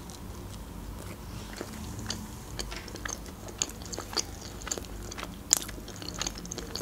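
Close-miked eating of a homemade mini pizza: a bite, then chewing with small wet mouth clicks scattered throughout and one sharper click about five and a half seconds in.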